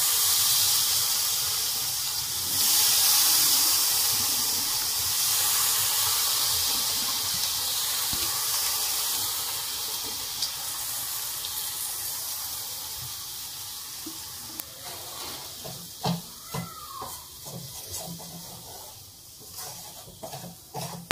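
Water sprayed onto semolina roasting in a hot pan, sizzling as a loud steady hiss that slowly fades as the water steams off. Near the end a wooden spatula scrapes and knocks in the pan.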